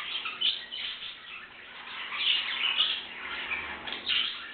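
Pet canaries chirping in short, repeated bursts of high calls.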